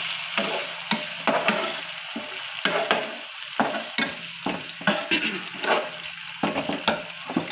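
Tomatoes, onions, garlic and green chillies sizzling in hot oil in a metal pan while a metal spatula stirs them, scraping and knocking against the pan about twice a second: the tadka (tempering) for masoor dal being fried.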